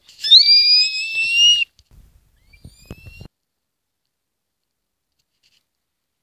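A loud, high-pitched whistling squeal, rising slightly and lasting about a second and a half, followed about a second later by two short, fainter squeaks.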